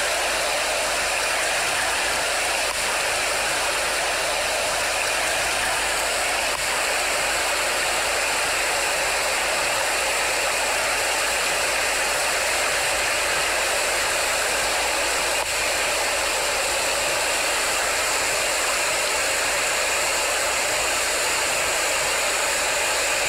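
Fast-flowing street floodwater rushing and churning in a flash flood: a steady, loud roar of water.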